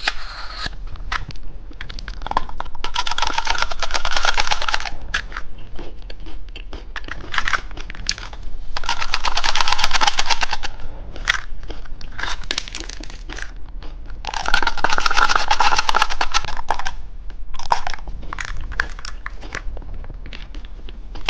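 Close-up crinkling and crunching of a chocolate lollipop and its plastic wrapping. It comes in three dense crackling spells of about two seconds each, with scattered sharp crackles between them.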